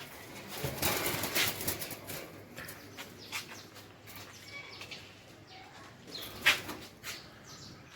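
Caged birds flapping their wings: a burst of rapid flaps about a second in, scattered flutters after, and one sharp, loud flap near the end.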